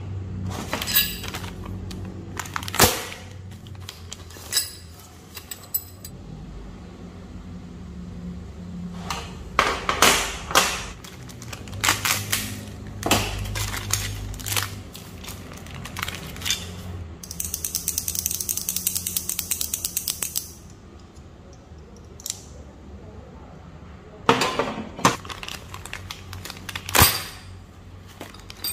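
Plastic packaging and small plastic and metal pegboard accessories being handled on a tabletop: bags crinkling, parts knocking and clicking as they are picked up and set down. Past the middle, a rapid, even crackle runs for about three seconds as a plastic bag is torn open.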